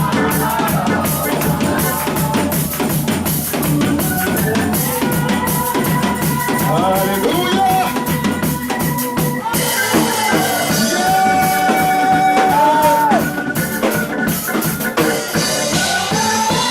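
Church worship band playing: a drum kit with rapid drum strokes under held keyboard or organ chords and melody.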